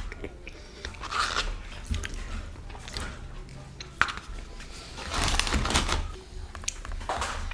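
Close-miked eating of crispy fried chicken tenders: irregular bites, crunches and chewing, with a louder stretch about five seconds in.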